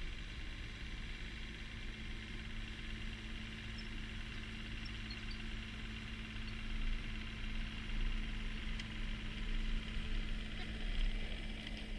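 Mini excavator's diesel engine running steadily as it tracks up a bank, with louder low rumbles from about seven seconds in.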